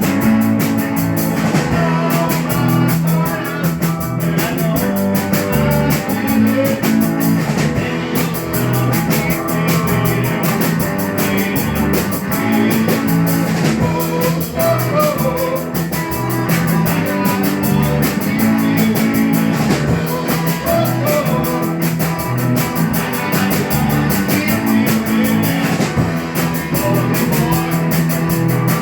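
Rock band playing with electric guitars, bass, keyboard and drum kit at a steady beat.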